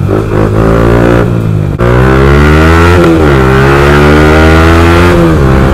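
Yamaha R15 V4's single-cylinder engine through a loud aftermarket exhaust, heard from the saddle under acceleration. The pitch climbs, drops at a gear change about three seconds in, climbs again, then falls as the throttle closes near the end.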